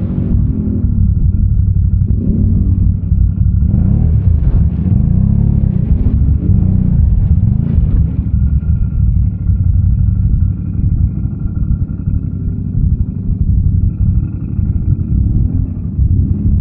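ATV engine revving up and down several times, then running more steadily with a faint high whine.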